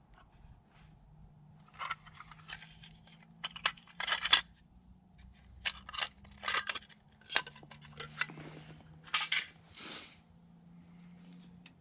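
Short clicks, taps and rustles of hands handling fatwood sticks and a small metal tin, then two quick scissor snips near the end.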